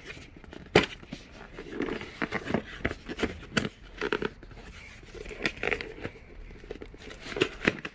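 Fingers prying at the end flap of a thin cardboard product box: irregular scraping, rubbing and tapping on the cardboard, with a sharp click about a second in and another near the end.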